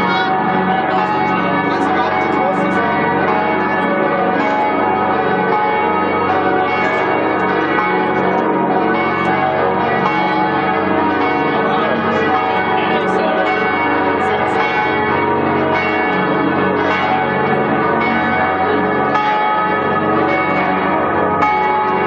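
Several large church bells ringing together in a continuous peal, their many tones overlapping and sustained.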